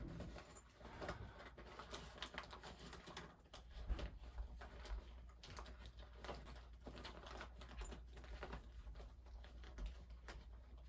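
Faint handling noise from an overstuffed toiletry bag being pressed and pulled closed: quick scratchy clicks and rustles, with a louder knock about four seconds in.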